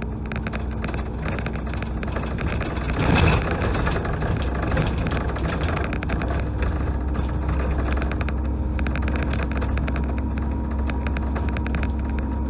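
Dennis Trident double-decker bus driving along, heard from the upper deck: a steady low engine drone with rapid rattling from the body and windows. There is a brief louder jolt about three seconds in.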